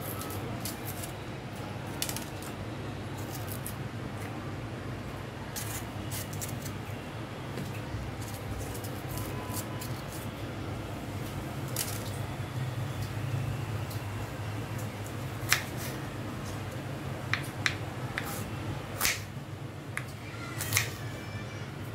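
Kitchen knife cutting a green bell pepper on a wooden cutting board: scattered sharp taps and slicing clicks, more and louder ones in the last few seconds, over a steady low hum.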